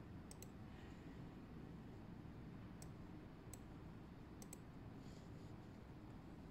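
Faint clicks of a laptop's pointer button as settings are picked in a configuration program: a quick double click, two single clicks, then another double click.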